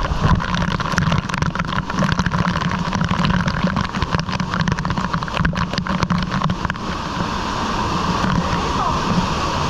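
Waterfall pouring down close to the microphone: a heavy, steady rush of falling water with a low rumble. Water splatters straight onto the camera housing in a dense crackle of drops until about seven seconds in, then a steadier, smoother rush.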